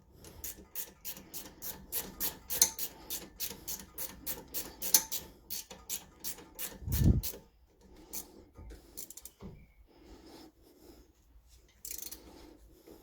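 Ratchet wrench clicking rapidly, about four or five clicks a second, as it tightens a 12mm brake caliper bolt. The clicking stops after about seven seconds with a dull knock, followed by faint handling.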